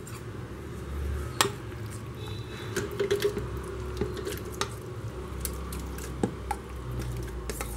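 Chopped ripe mango pieces tipped from a steel bowl into a plastic mixer-grinder jar: soft wet plops and squishes as the chunks drop and slide in, with scattered light clicks.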